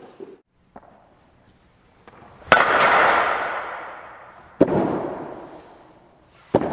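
Sharp cracks of a baseball being struck during a drill: a faint one, then three loud ones about two seconds apart. Each crack is followed by a long echo that fades away.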